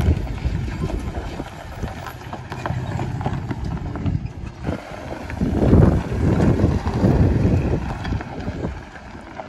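Off-road truck crawling over a rocky trail: a low, uneven rumble of engine and tyres with a few light knocks, swelling loudest about six seconds in.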